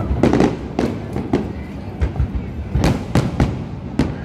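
Aerial fireworks bursting overhead: a quick, irregular run of sharp bangs, about two a second, over a continuous low rumble.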